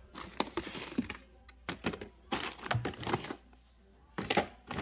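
Hands rummaging through a cluttered drawer of battery blister packs and bagged cables: irregular clicks and knocks of plastic packaging, with rustling plastic bags. A short lull comes about three and a half seconds in, then another cluster of knocks.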